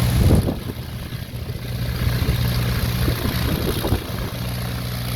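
Cessna 150G's four-cylinder Continental O-200 engine and propeller running steadily, heard from inside the cabin as a low, even drone.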